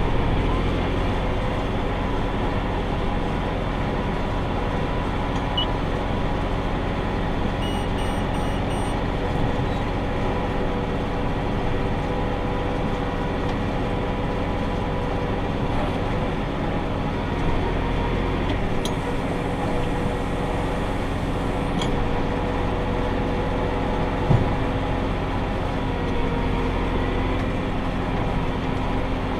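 Tractor engine running at a steady working speed while pulling a round baler through the hay field, a constant drone with a steady hum. A short row of faint electronic beeps sounds about eight seconds in.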